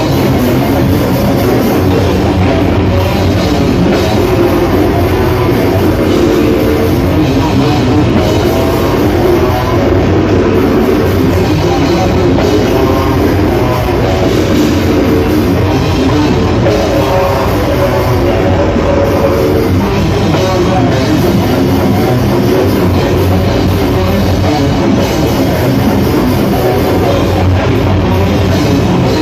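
Slam death metal band playing live at full volume: distorted electric guitar and a drum kit, with a vocalist growling into a microphone.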